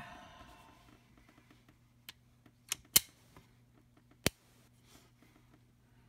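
Metal-on-metal handling of a Smith & Wesson pre-Model 27 revolver. A clack at the start rings briefly, then a few sharp clicks follow, the loudest about three seconds in, as the swung-out cylinder is closed and latched.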